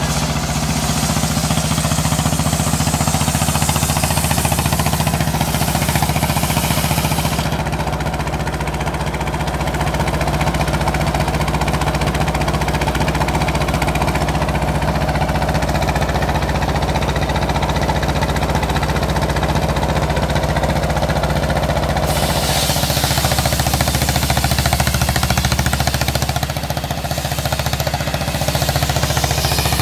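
Engine of a mobile circular sawmill running steadily under load while the saw blade rips lengthwise through a petai log; the cutting hiss is loudest for the first several seconds and again for a few seconds about two-thirds of the way through.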